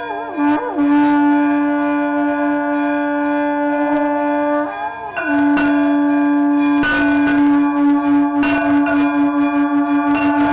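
Conch shell (shankh) blown in long held notes as part of a Hindu temple aarti, its pitch bending and breaking at the start and again about five seconds in. Temple bells ring over it in repeated strikes.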